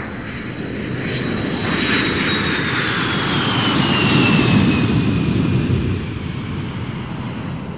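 Jet aircraft flyby: a rushing engine noise that swells to its loudest about four to five seconds in and then eases off, with a high whine that slides down in pitch as it passes.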